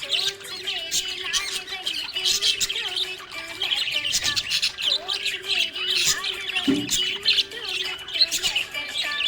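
Budgerigar chirping and squawking in a rapid, continuous run of short high calls.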